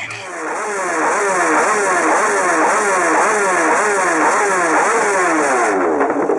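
Racing motorcycle engine revving hard, its pitch climbing and dropping over and over about twice a second. It cuts off shortly before the end.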